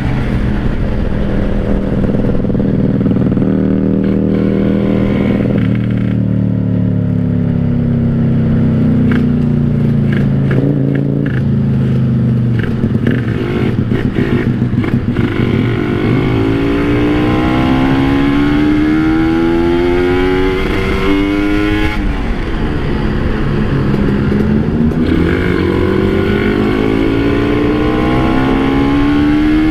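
Kawasaki Ninja 150RR's single-cylinder two-stroke engine being ridden. Its pitch sinks slowly for several seconds as the bike slows, then climbs in steps through the gears twice, with a brief drop between the two pulls.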